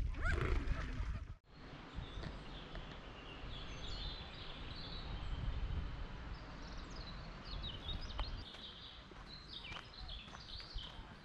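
Woodland songbirds chirping and singing, many short high calls over a steady background hiss. It opens with a louder second or so of other sound that cuts off suddenly.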